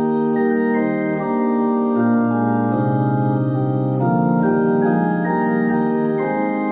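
Flute chorus on a three-manual digital organ, with 8-foot, 4-foot and 2-foot flute stops drawn together, playing a slow succession of sustained chords that change about once a second.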